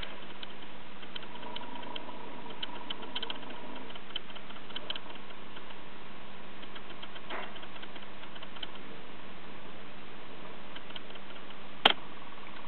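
Steady low machine hum under scattered light ticks, with one sharp click about 12 seconds in.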